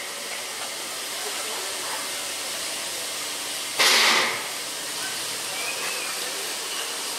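NGG16 Garratt steam locomotive standing at idle with a steady hiss of steam, and a louder, short surge of steam about four seconds in.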